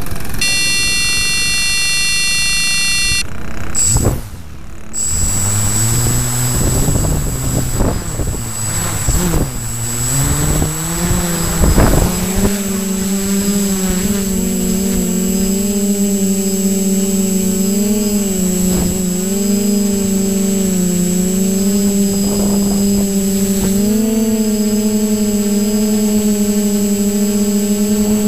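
Pixhawk-controlled multirotor drone: a long electronic beep of about three seconds, the flight controller's arming tone, then the brushless motors and propellers spin up with a wavering pitch, rise in pitch about twelve seconds in as it lifts off, and settle into a steady hum with a thin high whine above it.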